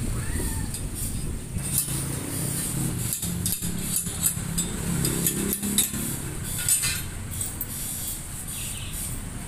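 Irregular metal clinks and taps of hand tools against bicycle parts as an old BMX bike's fork and headset are stripped, the sharpest about six to seven seconds in, over a steady low background rumble.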